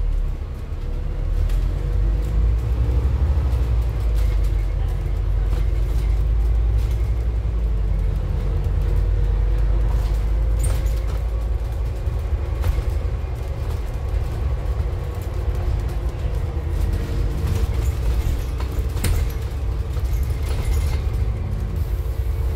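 Scania N280UD bus's gas-fuelled Scania DC09 engine and Voith automatic gearbox under way, heard from inside the passenger saloon: a steady deep rumble with a faint steady hum above it. A few sharp knocks and rattles from the bus body come through along the way.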